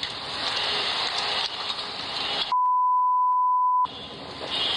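Rushing storm wind noise, cut off about two and a half seconds in by a steady 1 kHz censor bleep lasting over a second, which is the loudest sound. Then the wind noise returns.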